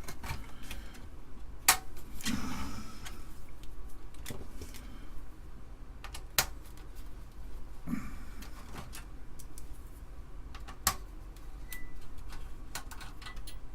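Scattered clicks, taps and rattles of hands and tools working on the opened Amiga 500's metal shielding and plastic parts, with three sharper clicks at about one and a half, six and a half and eleven seconds in.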